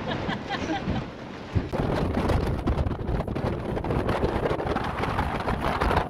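Wind buffeting the microphone outdoors: a heavy, gusting low rumble that sets in suddenly about two seconds in, after a little faint talk.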